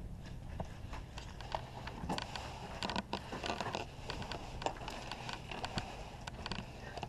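Footsteps crunching on dirt and gravel with gear and gun rattling, as irregular clicks and scuffs over a steady low rumble of wind on the microphone.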